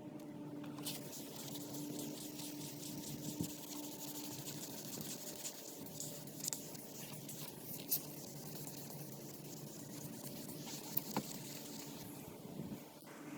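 Hand wet-sanding of a plastic headlight lens with 1,000-grit sandpaper: a continuous scratchy rubbing of repeated up-and-down strokes, with a few light clicks.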